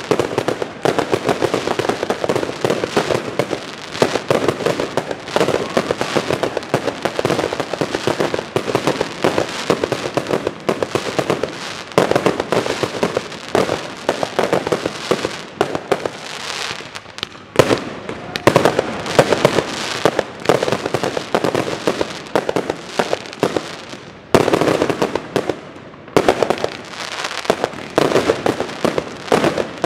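Fireworks display: aerial shells bursting in rapid, overlapping volleys of bangs and crackle, with brief lulls about two-thirds of the way through.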